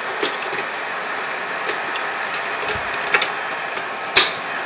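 Bell & Howell Robomatic slide projector's cooling fan motor running steadily, with a few light handling clicks and one sharp click about four seconds in.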